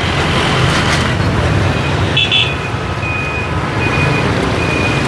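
Steady street traffic rumbling past, with a short high tone about two seconds in followed by a few brief high beeps.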